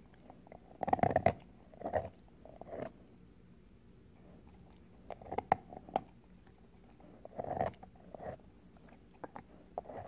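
A Samoyed crunching an ice cube with its teeth, in short clusters of crisp crunches a second or two apart, with quiet pauses between.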